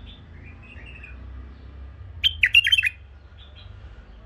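Caged bulbul singing: soft chirps, then about two seconds in a short loud burst of quick warbled notes lasting under a second. A low steady hum runs underneath.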